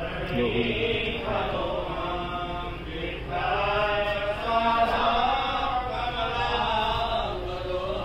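Devotional chanting in long, sung, held notes, played as a background track.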